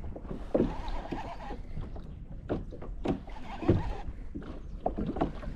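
Irregular knocks and thumps against a fishing kayak, as gear and a freshly landed fish are handled on board.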